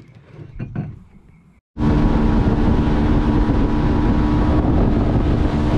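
Outboard motor of a Gheenoe skiff running at speed across the water: a loud steady drone with wind on the microphone and rushing water. It comes in abruptly a little under two seconds in, after a brief quieter stretch.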